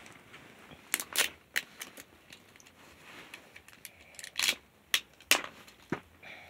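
Plastic toy packaging being handled and opened: irregular crinkles and sharp clicks, about eight of them.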